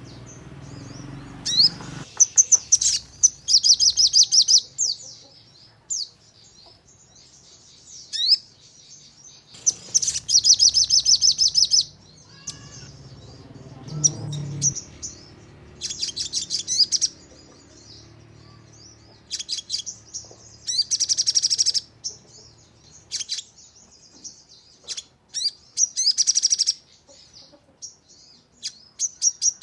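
Sogon (crimson sunbird) singing. It gives high, rapid trills in bursts of one to two seconds, about five times, with single sharp chirps between. These are the fast 'nembak' bursts that bird keepers use as bait song.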